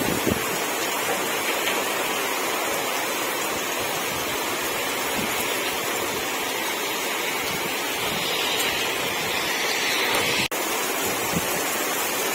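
Steady rush of water from a heavy downpour and flowing floodwater, cutting out for an instant about ten seconds in.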